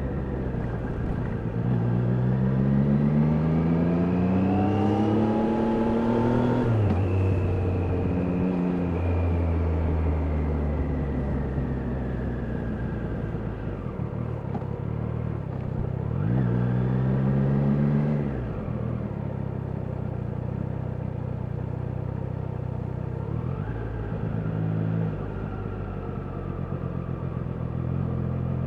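Triumph Daytona 660's three-cylinder engine under way, climbing in pitch for about five seconds as it pulls, then dropping back and running steadily. It climbs again briefly twice more, and once more near the end.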